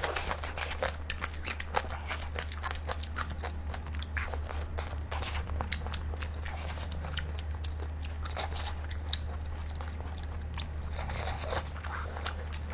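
Eating steamed H'Mông chicken: many small crunching, clicking bites and chews, over a steady low hum.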